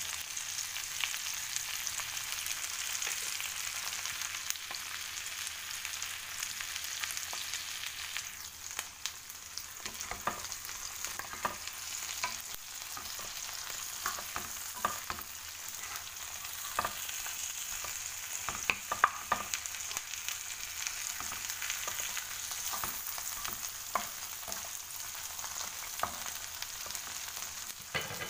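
Prawns frying in butter in a nonstick pan, a steady sizzle. From about eight seconds in, a wooden spatula scrapes and taps against the pan as the prawns are stirred.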